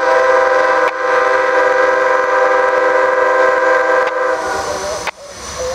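Amtrak passenger locomotive's multi-chime air horn sounding one long blast, several notes at once, that dies away about five seconds in.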